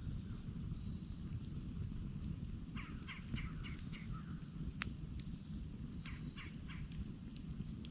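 Campfire crackling with scattered sharp pops, one louder snap a little past the middle, over a steady low rumble. A bird calls in two quick runs of about five rapid notes, about three seconds in and again about six seconds in.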